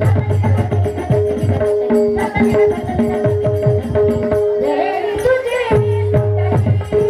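Marathi devotional bhajan music: a harmonium holds steady notes over a low drone while a hand drum and small cymbals keep a steady beat. A woman's voice sings a short, bending phrase about five seconds in.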